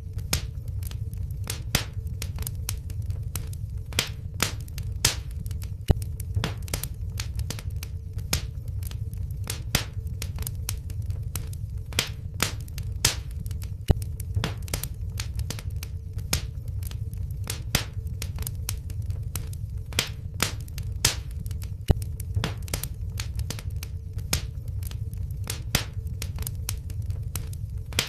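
Wood fire crackling in a fireplace: many sharp pops and snaps, some louder than the rest, over a steady low rumble.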